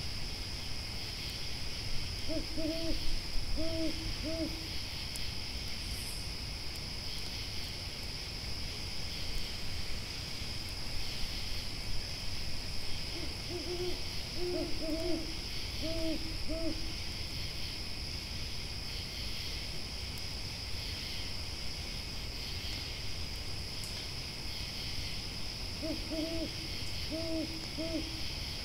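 An owl hooting in three bouts, each a quick run of short hoots, over a steady high chirring of night insects.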